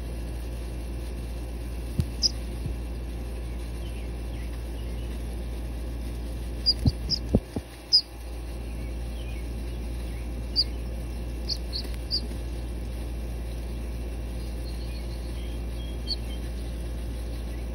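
Short, high peeps from a ringed teal duckling held in the hand, scattered singly and in little clusters, over a steady low hum. A few handling bumps come about seven to eight seconds in.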